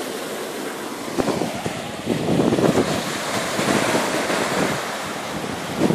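Small waves breaking and washing in over the sand at the water's edge. Wind buffets the microphone, louder and gusty from about two seconds in.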